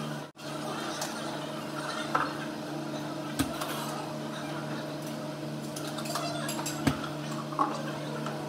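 Cups and utensils clinking and knocking now and then as drinks are made at a café counter, over a steady machine hum. The sound drops out briefly near the start.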